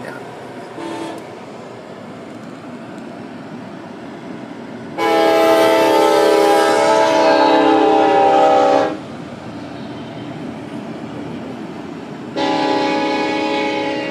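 Freight train's diesel locomotive air horn: a brief toot about a second in, then a loud chord held for about four seconds, then another long blast starting near the end. Under it runs the steady rumble of the train passing the crossing.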